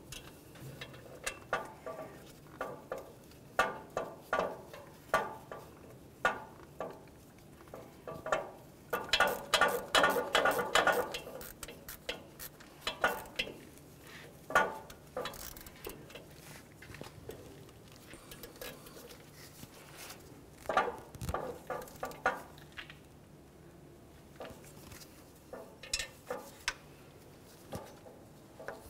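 Hand ratchet clicking in short runs, with socket and metal parts clinking, as exhaust manifold mounting studs and nuts are run in by hand. The clicks come in bursts, the longest and densest about nine to eleven seconds in.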